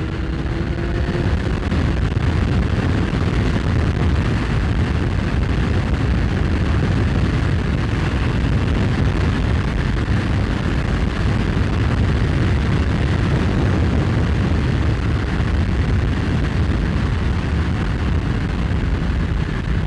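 Kawasaki Z1000's inline-four engine pulling under hard throttle at speed, largely buried under heavy wind buffeting on the helmet-mounted microphone. A rising engine note is heard in the first second or so.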